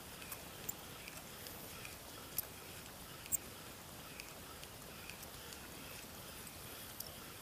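Quiet riverside ambience with a faint steady hiss, broken by a handful of short, sharp, high clicks, the loudest about two and a half and three and a half seconds in.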